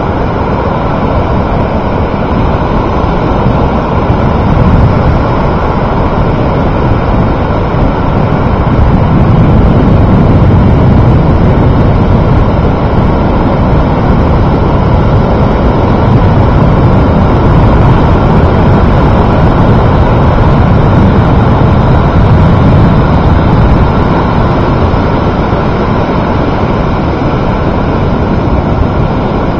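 Loud, steady rushing noise of breaking surf and wind on the microphone, heaviest in the low rumble and swelling and easing slowly, with no engine or voice.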